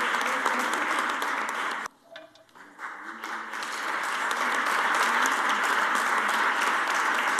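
Audience applauding: a dense, steady clatter of many hands clapping. It cuts off abruptly about two seconds in, then swells back up a second or so later.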